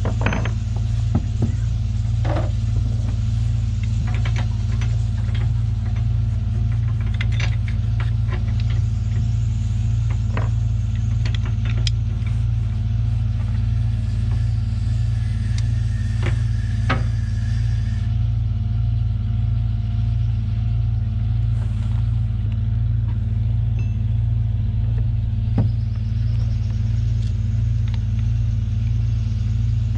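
A low, steady engine hum runs without change, with scattered light clicks and knocks from hand work on rigging hardware.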